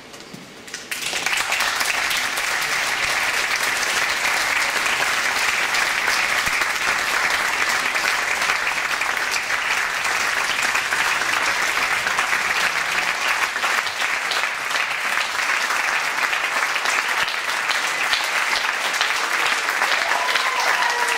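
Theatre audience applauding a curtain call: dense clapping breaks out about a second in and carries on steadily.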